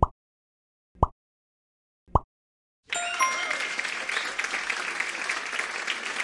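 Three short pop sound effects about a second apart as the covering blocks vanish. About three seconds in comes a brief chime, then a sustained applause sound effect marking the revealed answer.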